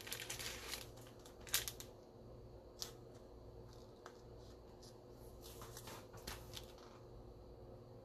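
Plastic card sleeves and trading cards being handled: soft rustles and light clicks come in clusters, busiest in the first two seconds and again around the sixth second, over a faint steady hum.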